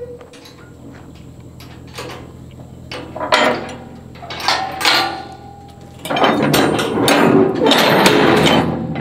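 Heavy metal clanking and rattling from the excavator and its trailer as the machine is readied for unloading, a few separate knocks and then a loud run of clatter in the last three seconds, over a steady diesel idle.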